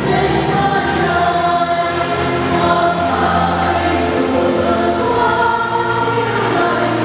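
Church choir singing a hymn, with long held notes.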